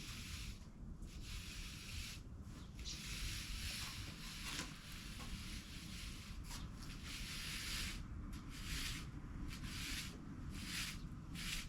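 Irregular rubbing strokes: several long ones of one to two seconds, then shorter, quicker strokes near the end.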